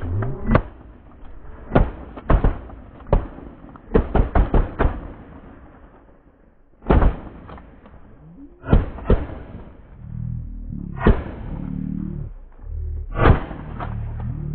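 Shotgun shots from several goose hunters firing at a flock: about fifteen sharp blasts in irregular volleys, with a quick run of five about four seconds in.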